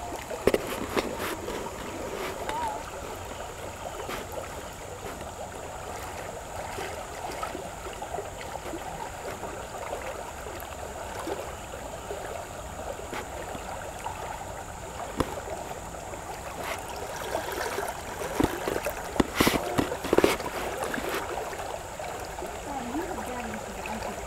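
Creek water rushing and gurgling, heard through a camera held under the surface, with scattered sharp knocks. The loudest knocks come in a cluster about three-quarters of the way through.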